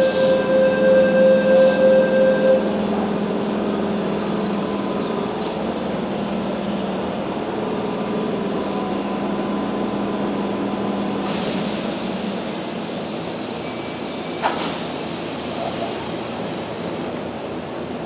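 Keihan 2400 series electric train standing at a platform, its equipment humming steadily. A pulsing electronic beep sounds for the first two and a half seconds. A high hiss starts about eleven seconds in, and a sharp clunk follows about three seconds later.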